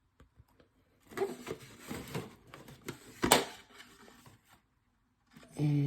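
Chromium trading cards being handled and flipped through: a quick run of slick rustles and clicks, with one sharp snap a little past the middle. A short hummed voice sound comes near the end.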